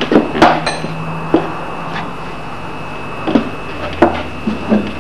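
Irregular metallic clinks and knocks as a hand file and the axe filing jig are handled and adjusted on the bench, about nine sharp taps spread unevenly through the seconds, the loudest near the start. A thin steady high whine runs behind them.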